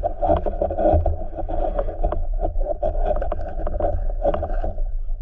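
Muffled underwater sound heard through a camera's waterproof housing: a steady dull rush of water with frequent small clicks and knocks.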